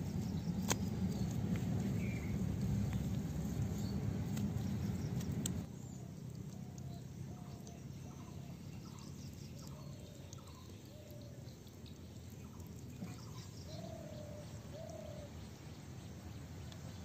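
A low rumbling noise fills the first five or so seconds and cuts off abruptly. After it, a bird calls repeatedly: short notes, many dipping in pitch, about one or two a second.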